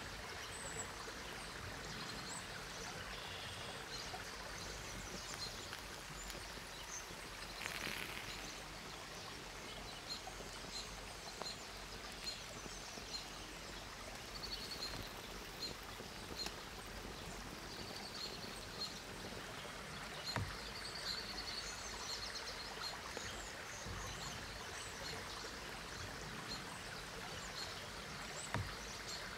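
Small forest stream trickling steadily, with small birds chirping now and then and a few brief sharp clicks.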